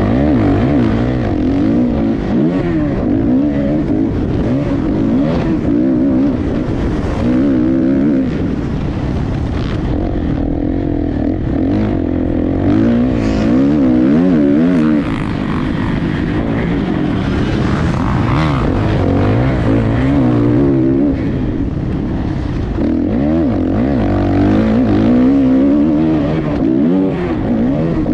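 Motocross bike engine revving hard, its pitch rising and falling over and over as the rider accelerates, shifts and backs off around the track.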